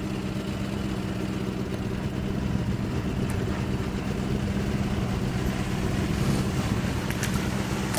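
Boat motor running steadily with an even hum.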